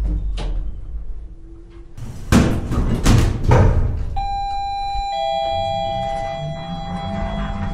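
Sound effects for an animated metal-panel sequence: a low rumble with a click, then a run of heavy mechanical clanks and slams about two to four seconds in, followed by a steady electronic chime-like tone held over several pitches.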